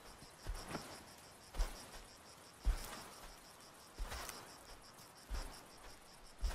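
Insects chirping in a steady, rapid pulse, with a heavy crunching footfall about every second as an African elephant walks through dry grass and brush.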